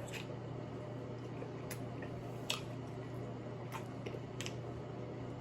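Scattered clicks and wet squishes from eating seafood boil with the hands, about five in all, the sharpest about two and a half seconds in, over a low steady hum.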